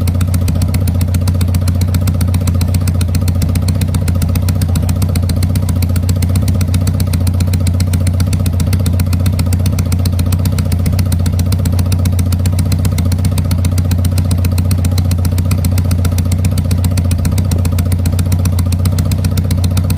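Honda CD200's twin-cylinder engine idling steadily through aftermarket Bullet-style silencers, with a deep, even exhaust pulse that holds the same pitch throughout.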